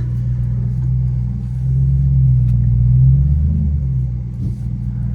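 2012 Ford Shelby GT500's supercharged V8, with a VMP press-on supercharger pulley, running with a deep steady rumble heard from inside the cabin. It swells a little about two seconds in and eases off near the end.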